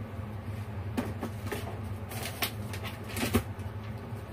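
A few light clicks and rustles of ingredients and a dish being handled, over a steady low hum.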